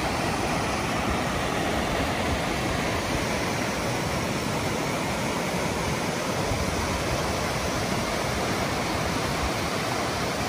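Steady rush of a waterfall pouring over a smooth granite lip, an even wash of water noise that holds constant throughout.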